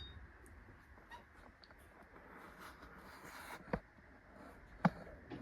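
Two short sharp clicks about a second apart, from handling equipment on a workbench, over faint room noise.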